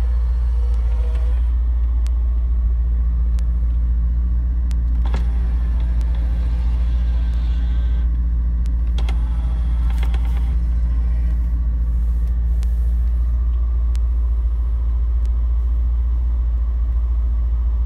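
Cabin sound of a 2002 BMW E39 M5 driving slowly: a steady deep drone from its V8 engine and the tyres on the road, with a few faint clicks.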